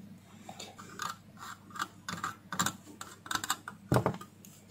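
Light, irregular clicks and taps from an inverter circuit board being handled on a plastic sheet, with one sharper knock near the end.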